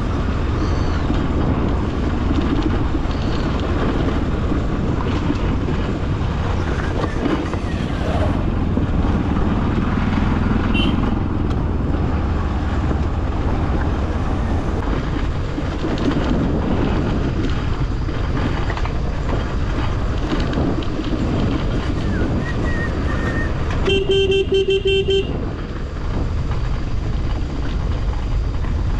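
Motorcycle engine running while riding a rough gravel road, with steady road and wind noise. Near the end a horn sounds once, a single steady tone lasting just over a second.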